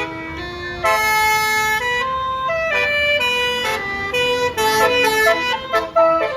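Bus's Basuri multi-note musical air horn (telolet) playing a quick melody, its notes stepping up and down every fraction of a second and getting louder about a second in.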